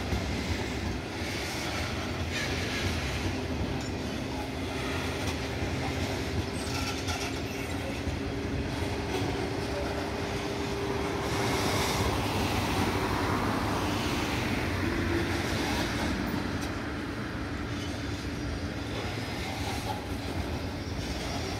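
Freight wagons rolling past: steel wheels rumbling and clattering over the rails, with a faint steady wheel whine in the middle and a slight swell in loudness about halfway through.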